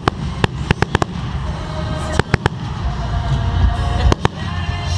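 Fireworks going off close by: a rapid scatter of sharp crackling pops over a continuous low rumble of booms.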